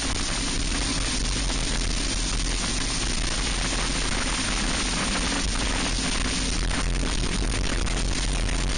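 Briggs & Stratton Animal four-stroke single-cylinder kart engine running steadily at high revs under racing load, nearly buried under a loud, even rush of wind on the microphone.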